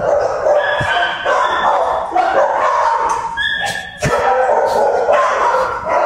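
Shelter dogs barking and yipping in kennels, many calls overlapping in a continuous din.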